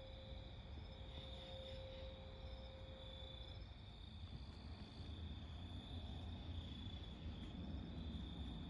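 Crickets chirping steadily, with a low rumble from an aircraft overhead growing louder in the second half. A faint steady tone fades out about a third of the way in.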